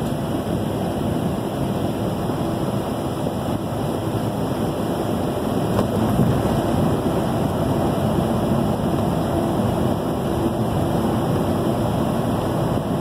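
Steady road noise from inside a vehicle driving along a highway: tyre and engine noise.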